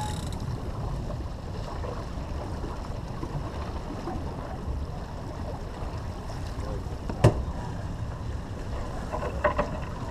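Wind buffeting the microphone and water rushing past the hull of a sailboat under way, a steady rumble, with one sharp knock about seven seconds in.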